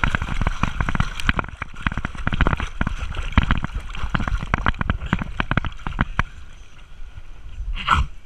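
Pool water splashing and sloshing close around a small dog as it paddles, heard through a GoPro's waterproof housing strapped to the dog's back, with many sharp irregular splashes. The splashing dies down for the last couple of seconds, with one brief louder burst near the end.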